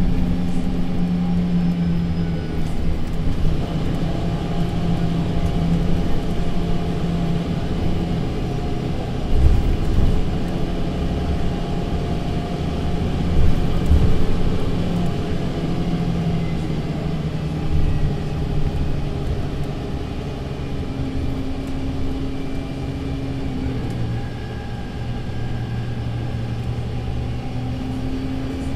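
Mercedes-Benz Citaro C2 LE city bus's diesel engine and Voith automatic gearbox running as the bus drives, heard from inside the passenger cabin. The drone steps up and down in pitch several times, with a couple of louder low bumps about ten and fourteen seconds in.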